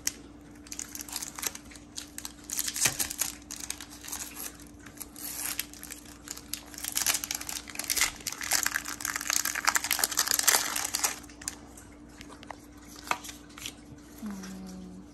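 Foil wrapper of a Pokémon trading card booster pack crinkling and tearing as it is pulled open by hand, loudest about two-thirds of the way through and then dying down as the cards come out.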